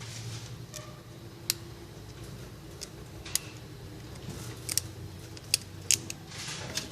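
Small sharp plastic clicks and light scraping as a SIM card is worked out of a Samsung phone's slot: about six separate clicks at uneven intervals, the loudest in the second half.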